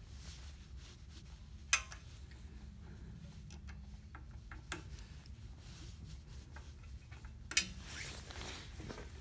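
Allen key working the screw of a bike-lock strap adapter: faint metal rubbing and three sharp clicks a few seconds apart, over a low steady hum.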